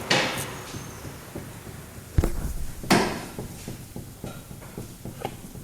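Knocks and clunks from a worn front ball joint on a Citroën C3 as the wheel and suspension are worked by hand: three louder knocks, the sharpest a little over two seconds in, with lighter ticks between. The knocking is the sign of play in the ball joint.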